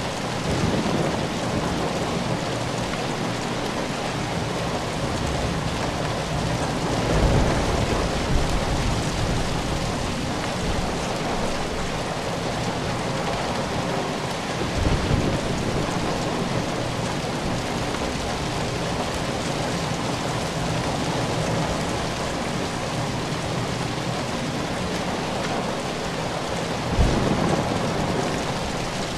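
Steady rain falling, an even hiss of many drops, with low rumbles of thunder rising out of it three times.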